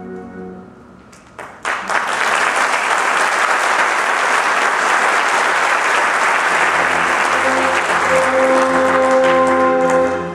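Audience applauding: a few scattered claps about a second and a half in, then full, steady applause. The orchestra's last chord fades out at the start, and about two-thirds of the way through the orchestra starts playing again under the applause.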